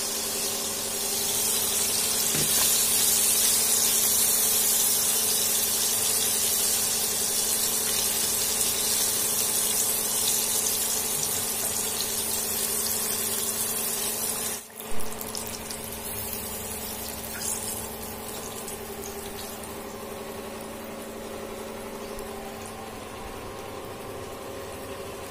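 Hot oil sizzling as flour-battered snapper fillet pieces deep-fry in a pan, a steady high hiss over a steady low hum. About halfway through there is one brief sharp bump, after which the sizzling is quieter.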